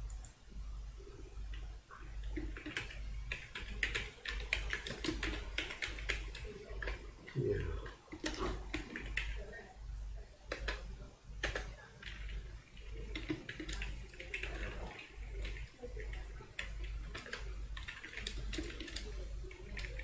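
Computer keyboard typing: irregular, quick key clicks with short pauses, over a steady low hum.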